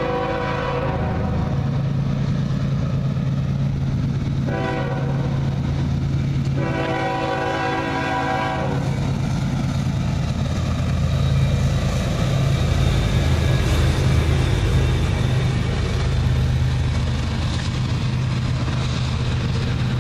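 CSX diesel freight locomotive sounding its multi-chime air horn as it approaches: a long blast that ends about a second in, a short one, then a longer one, the close of a grade-crossing signal. The diesel engine's drone then grows louder as the locomotive passes and the double-stack container cars roll by.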